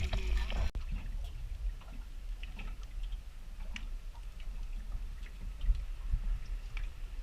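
Crayfish halves sizzling in butter in a pan over high heat, with scattered small crackles over a low rumble.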